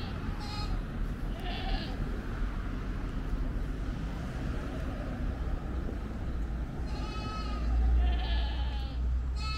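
Bleating livestock: two short bleats in the first couple of seconds, then three more in quick succession in the last few seconds.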